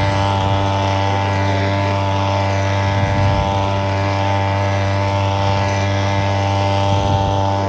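Small two-stroke, 2-horsepower outboard motor running at a steady speed, an even engine drone that doesn't change pitch.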